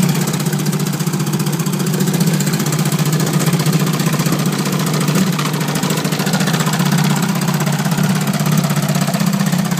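1972 Johnson 25 hp two-cylinder two-stroke outboard running steadily at low speed in a water-filled test barrel, its propeller churning the water.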